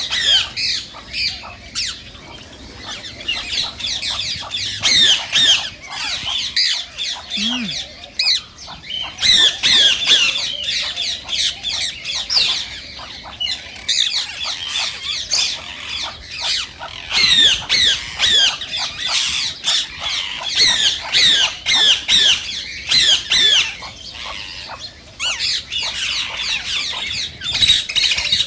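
Indian ringneck parakeets (rose-ringed parakeets) calling: rapid, shrill, repeated screeching chirps that come in dense bursts with short pauses between them.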